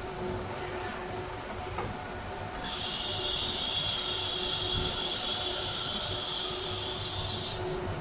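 Compressed air hissing hard at the CNC router's spindle during an automatic tool change. It starts abruptly about two and a half seconds in and cuts off sharply near the end, over the machine's steady hum.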